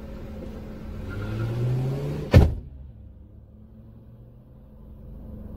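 Car's electric window motor whining and rising in pitch, ending about two and a half seconds in with a loud thunk as the glass seats shut. After that the outside noise is muffled and the engine hum is left.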